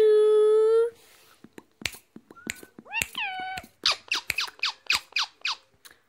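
Indian ringneck parakeet calling: a loud, steady screech for about a second, then a falling call about three seconds in, followed by a quick run of short falling chirps, with a few sharp clicks between.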